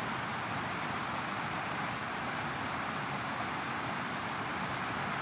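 Fast-flowing river rushing over rocks: a steady, even rush of water.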